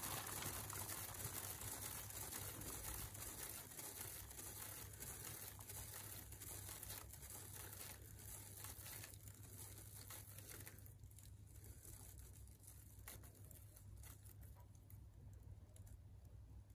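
Liquid acrylic paint flung off a spinning pour painting and pattering onto plastic sheeting as many small splats. They come thick at first, then thin out and fade as the spin slows.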